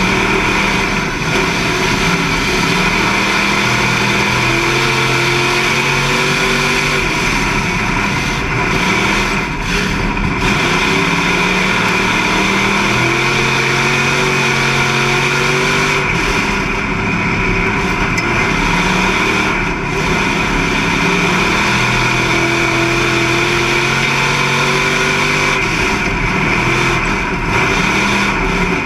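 Street stock race car's engine heard from inside the cockpit at racing speed, climbing in pitch under acceleration and dropping back as the driver lifts, again and again.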